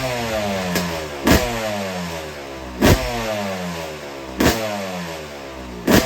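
Yamaha YZ250 two-stroke motocross engine revving, its pitch falling again and again, broken by sharp clicks about every second and a half.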